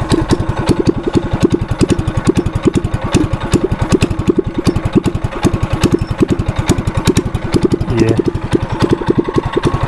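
Small single-cylinder mini bike engine with an aftermarket exhaust idling, a loud, steady train of evenly spaced exhaust pulses.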